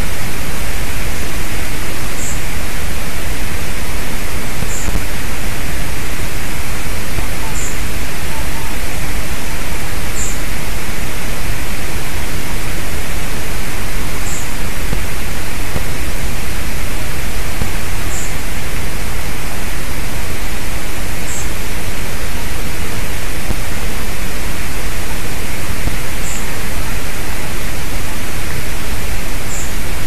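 A steady, loud hiss fills the sound, with a small bird's short, very high, thin call repeating every two to four seconds, about ten times in all.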